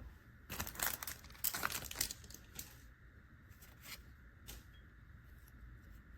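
Foil wrapper of a Pokémon booster pack being torn open and crinkled, with a burst of tearing and rustling in the first two seconds and a few small crackles after.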